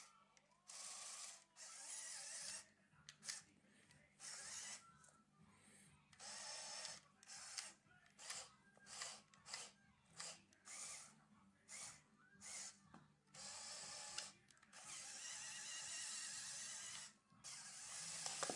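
Small electric motors of a motorized Lego excavator whirring in repeated short stop-start bursts, with a longer run of a couple of seconds near the end.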